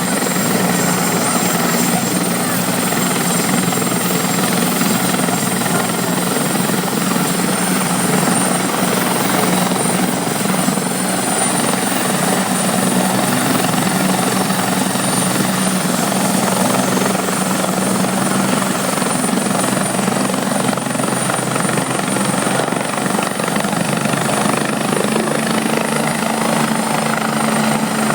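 Helicopter running steadily: continuous rotor and engine noise with a thin high turbine whine on top. Its low tone rises a little near the end.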